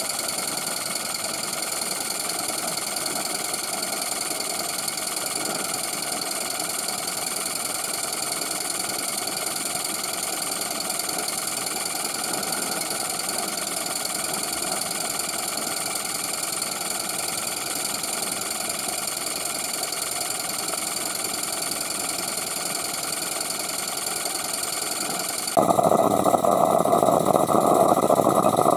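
Gas-fired 3/4-inch-scale Maxitrak Allchin model steam traction engine running steadily on its stand with the gas burner lit, the single-cylinder engine turning over during its run-in. Near the end the sound jumps louder and fuller as the engine is heard from close by.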